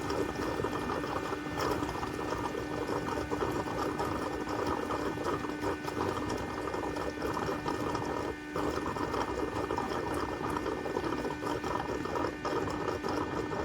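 eufy Omni C20 robot vacuum-mop and its station running a mop-washing cycle: a steady motor whir with a constant hum and hiss, dipping briefly about eight and a half seconds in.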